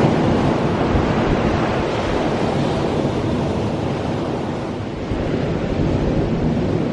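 Ocean surf washing in, with wind gusting over the microphone. It is a steady rush that eases, then swells again about five seconds in.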